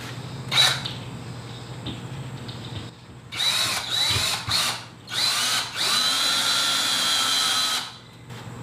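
Cordless drill driving a screw into a wall stud: one quick blip, then several short trigger bursts, each motor whine rising as it spins up, and finally a steady run of about two seconds that stops abruptly.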